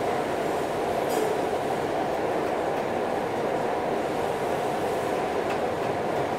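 Steady, even rushing noise in a welding shop while a TIG arc burns on stainless steel pipe, with a faint tick about a second in.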